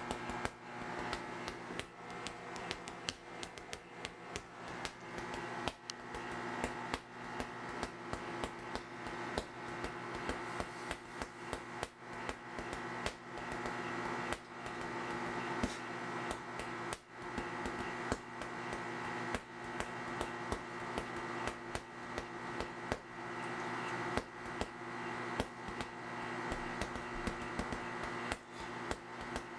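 Microwave oven running with a steady electrical hum while heating food, with frequent irregular sharp clicks and ticks over it.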